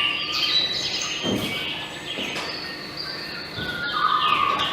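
Several birds chirping and whistling together in an overlapping chorus, many calls short and falling in pitch, forming a forest soundscape.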